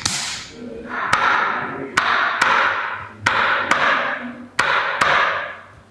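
Sharp taps during a chiropractic treatment, coming in pairs about half a second apart, one pair every second or so, each tap trailing off in a short hiss.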